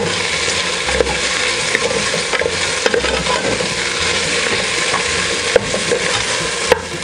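Sliced beef skin and onions sizzling in hot oil in a pressure cooker pot as they are stirred with a wooden spatula. The spatula scrapes through the pieces and clicks against the pot now and then.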